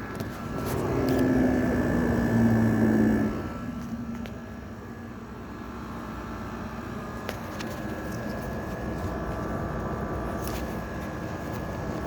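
General Electric 5,050 BTU window air conditioner running steadily with fan and compressor on, a continuous hum and rush of air. About half a second in, a louder low hum swells up and fades out after about three seconds.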